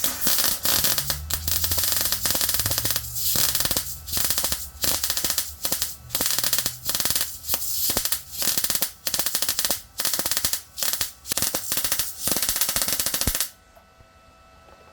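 Arccaptain MIG 200 welder arcing while steel gussets are welded on: a crackling arc, first one longer run of a few seconds, then about a dozen short bursts with brief pauses between them, stopping suddenly near the end.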